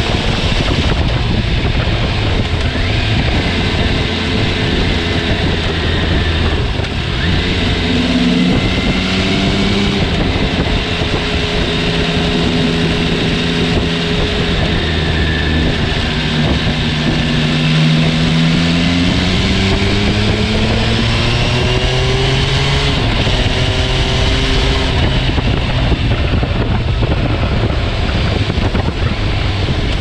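MV Agusta Turismo Veloce Lusso's three-cylinder engine running at road speed, its pitch dropping early on, holding level through the middle, then climbing again in the second half. Heavy wind rushes over the microphone throughout.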